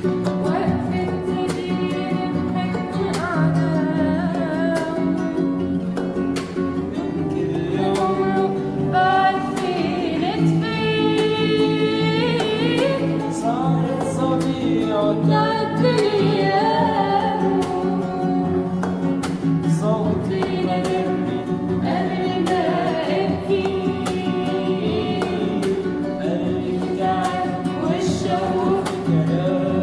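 A girl singing a slow melody with long, wavering held notes over a plucked guitar accompaniment.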